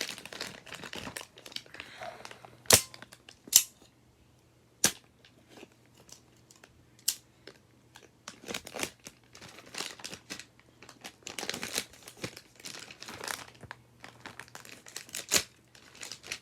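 Stiff plastic toy packaging crinkling and crackling as it is cut and pried open, with several sharp snaps of the plastic along the way: a pair of loud ones about three seconds in, others near five and seven seconds and one near the end.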